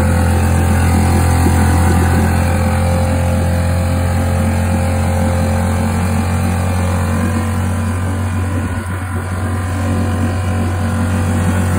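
Honda four-stroke outboard motor running steadily and noisily, its even, buzzing note showing it runs well after a fresh service with new spark plugs and oil.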